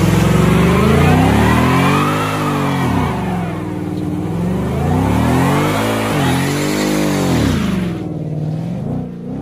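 Car engine revved hard several times in a row, its pitch climbing and dropping with each rev, easing off near the end.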